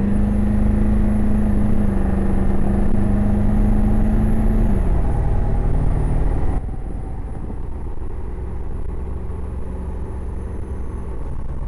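Ford 7.3 L Powerstroke V8 turbodiesel in an F-250 pulling at highway speed, heard from inside the cab over road noise: a steady drone with a thin high whistle riding on it. Both dip slightly in pitch about five seconds in, and the sound drops suddenly quieter about six and a half seconds in to a lower steady rumble.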